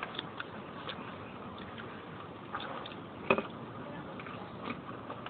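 A person eating with their hands, chewing and smacking, with scattered small clicks and one sharper click about three seconds in.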